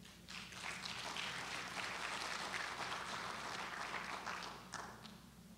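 Audience applauding: many hands clapping together, starting right away and dying out near the end.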